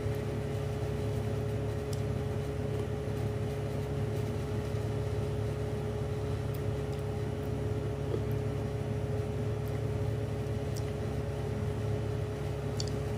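Steady low hum with a single thin steady tone above it, unchanging throughout, and a few faint clicks.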